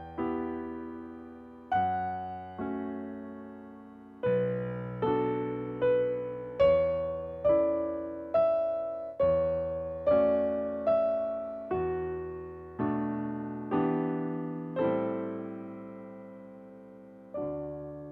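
Piano playing slow chords, each struck and left to ring and fade, about one a second, with a couple of longer held chords near the end.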